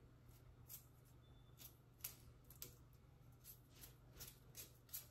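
Near silence, with faint, irregular light clicks and taps, about a dozen over the few seconds, over a low steady hum.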